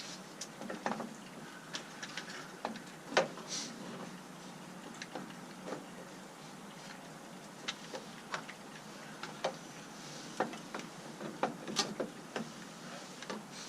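Irregular small clicks and taps of hand work on a Jeep JK headlight assembly: tools, screws and plastic trim parts being handled, with one sharper knock about three seconds in.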